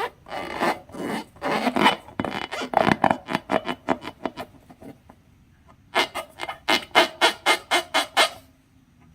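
Slime being squished and pressed by hand: a run of short, sticky squelches and pops. They pause about four and a half seconds in and resume at about four a second near six seconds.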